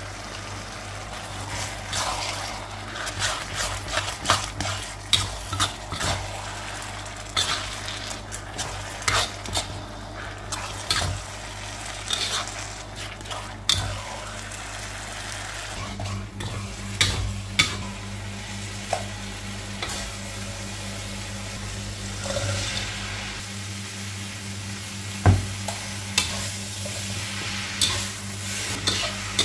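Chili sambal frying in a wok, stirred and scraped with a metal utensil: a steady sizzle broken by many irregular scrapes and clicks of metal on the pan.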